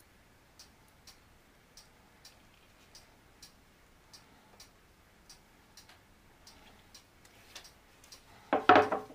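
Faint, steady ticking of a clock, a little under two ticks a second in an even tick-tock rhythm. Near the end, a brief louder sound breaks in.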